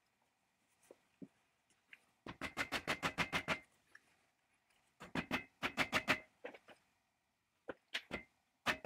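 Rapid runs of ringing metal taps, about eight a second, as the end plate of a 1960s Strunk electric chainsaw motor is tapped down onto its housing. There are three runs: one about two seconds in, one about five seconds in, and one starting near the end. Between them are a few faint clicks of the parts being handled.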